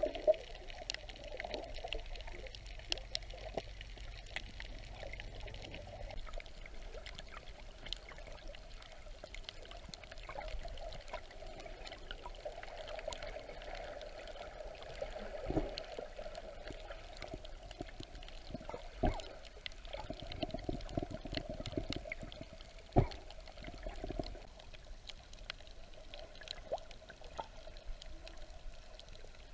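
Water heard from a camera held underwater: a steady, muffled wash of moving water with many faint scattered clicks. A few sharper knocks stand out, the loudest about three-quarters of the way through.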